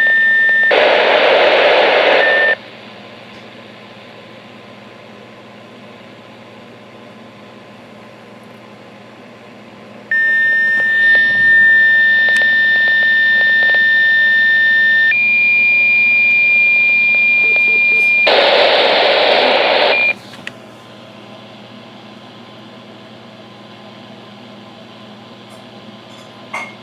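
Steady electronic tones from weather-radio equipment. One held tone cuts off about two and a half seconds in; after a quiet stretch with low hum, a second tone starts near ten seconds, steps up in pitch about five seconds later and stops around twenty seconds in. Two short bursts of hiss come over the tones, one near the start and one near the end.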